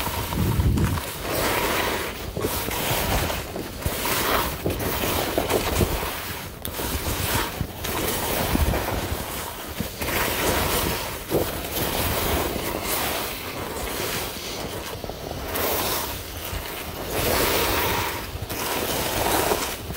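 Skis scraping over packed snow, the rush swelling and fading with each turn, mixed with wind blowing across the microphone.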